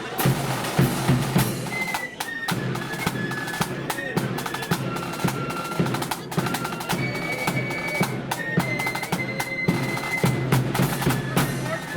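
Marching flute band playing, with snare drum rolls and bass drum beats. Flutes come in with a melody of held notes about two seconds in.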